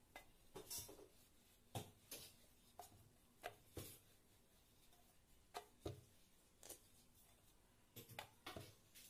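Faint, irregular light knocks and clicks of a wooden rolling pin and hands working puri dough on a stainless steel plate as the dough is flipped and rolled out.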